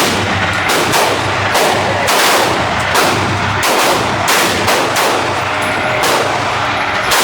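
A rapid string of about a dozen gunshots, each a sharp blast with a ringing tail, from an AR-style semi-automatic 12-gauge shotgun being fired.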